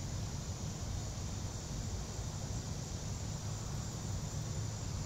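Steady outdoor background noise: an even hiss over a low rumble, with no shot or other sudden sound.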